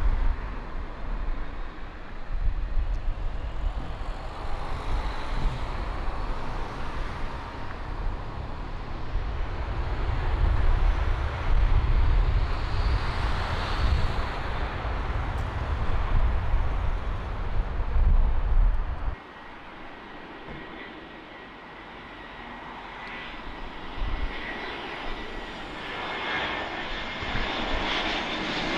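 Airliner engines passing close by, a heavy rumble with broad roaring noise. About two-thirds of the way in the low rumble cuts off suddenly, and near the end a high engine whine grows louder as an aircraft approaches.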